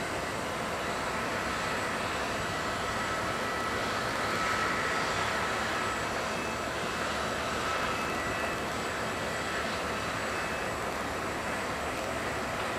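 Jet aircraft engines running steadily on the apron: a continuous rushing noise with thin, high steady whines, swelling slightly about four seconds in.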